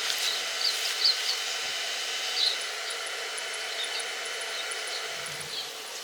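Electric arc welding: a steady hiss with scattered small crackles from the welding arc.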